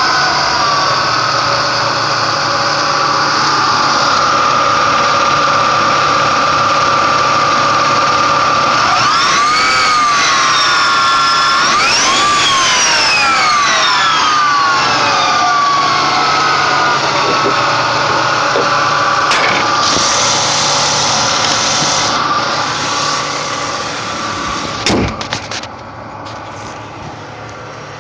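Ford Mustang V6 engine running with a high, turbo-like whine that follows engine speed. It is revved twice, about ten and twelve seconds in, the whine rising and falling in pitch each time before settling back. The owner thinks the whine comes from the alternator. A click near the end is followed by a drop in loudness.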